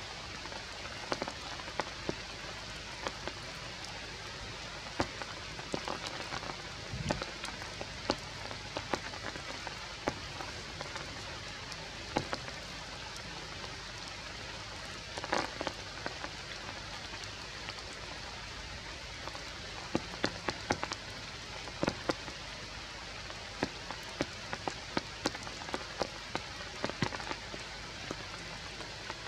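Steady rain falling on forest leaves, with scattered sharp drops hitting close by throughout and a small cluster of them about halfway through.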